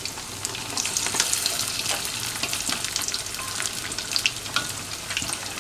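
Batter-coated bread slices deep-frying in hot oil: steady sizzling, with many quick crackling pops through it, getting a little louder about a second in.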